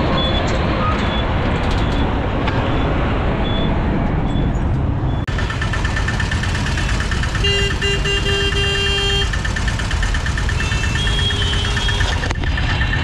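Road noise from riding in an open auto-rickshaw through dense street traffic, with the three-wheeler running underneath. Vehicle horns honk around it, the longest a sustained horn blast about halfway through.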